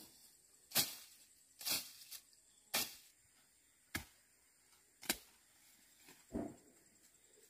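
Six sharp strikes of a hand tool, about one a second; the last is duller and heavier.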